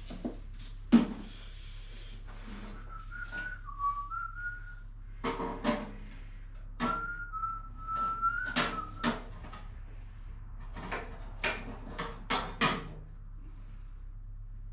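A person whistling a few stepping notes twice, between sharp knocks and clanks of metal being handled, with the loudest knock about a second in. A steady low electrical hum runs underneath.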